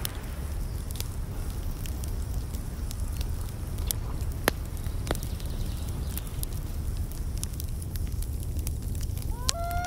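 Wood fire burning in a small metal camp stove, crackling with scattered sharp pops over a low steady rumble. Just before the end a rising, siren-like tone begins.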